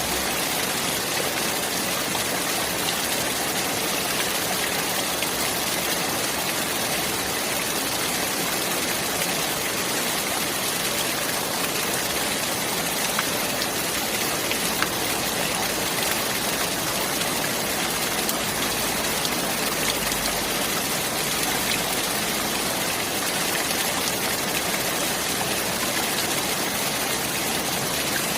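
Running water rushing steadily, an even hiss with no breaks or changes.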